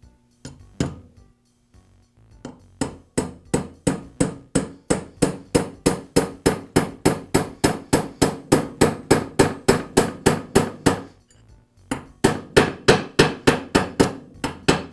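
A small hammer tapping a steel roll pin into place, driving the smaller roll pin through the centre of the larger one in a nail gun piston to lock the driver on. One tap, then a long, even run of sharp metal taps at about three a second, a short pause, and a quicker run of taps near the end.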